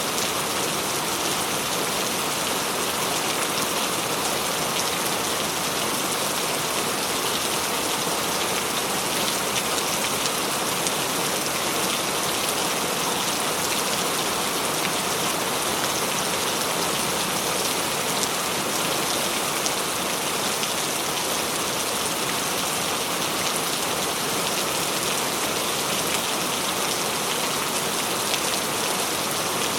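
Steady heavy rain falling on a surface, a dense even hiss of many drops with no thunder.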